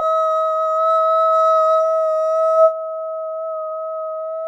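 A steady, held electronic tone at one pitch. It sounds fuller until about two and a half seconds in, then carries on thinner and a little quieter.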